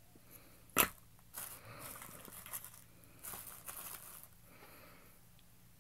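One sharp click of hard plastic about a second in, then two stretches of bubble wrap and plastic wrapping crinkling and rustling as small plastic gumball football helmets are handled in a packed cardboard box.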